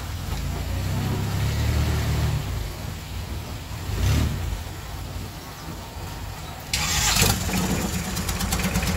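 Boat engine running, its low drone swelling briefly about four seconds in, with a loud rush of noise about seven seconds in.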